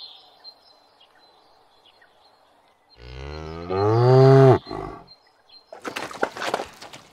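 A cow moos once, a long call of about a second and a half that swells in loudness and cuts off sharply. About a second later comes a short spell of scraping and clinking as a steel plate is scrubbed in a metal basin.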